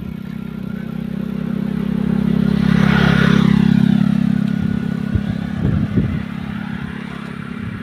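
A motor vehicle passes close by, its engine hum building to a peak about three seconds in and then fading as it goes away. A few knocks and clatters follow near the end.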